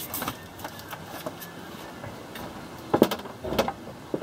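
A few scattered knocks and clunks over a faint steady background: light clicks near the start, then a sharp knock about three seconds in, a short cluster of knocks just after it, and one more near the end.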